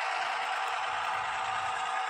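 Steady diesel engine sound from the LokSound 5 sound decoder in an HO scale Atlas MP15DC model locomotive, played through its small onboard speaker while the engine shoves cars along the track. The sound is thin and hissy, with a few held tones and almost no deep bass.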